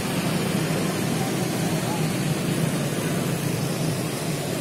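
Busy street-market ambience: a steady mix of passing motorcycle and scooter engines with an indistinct hubbub of voices.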